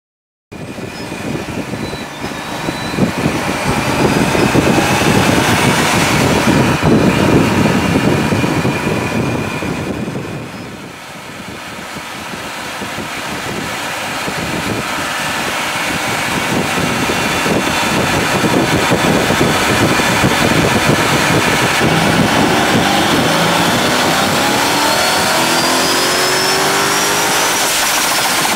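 Supercharged 426 cubic-inch Hemi V8 (Arrington short block, stock 6.4L heads, stock exhaust) in a 2013 Dodge Challenger SRT8 running on a dyno, with its Procharger D1 centrifugal supercharger whining. It revs up and stays loud for several seconds and eases off about ten seconds in. It then builds steadily in a long pull, the engine note and the supercharger whine climbing in pitch toward the end.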